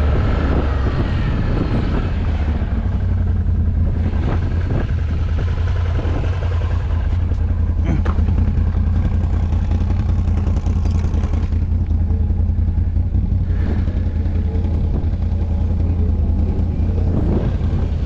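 Can-Am off-road vehicle's engine running steadily under way, with a few light knocks along the way.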